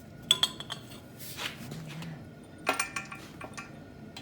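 Steel hand tools clinking and ringing against metal as a 3/8 socket hammered onto a rounded-off bolt head is worked: sharp metallic clinks about a third of a second in, then a louder cluster near three seconds.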